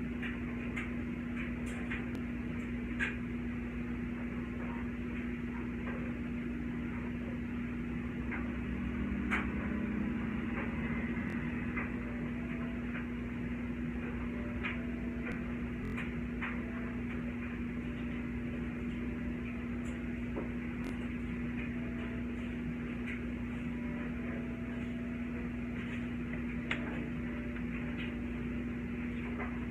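Steady low electrical hum with a few faint clicks and knocks over it.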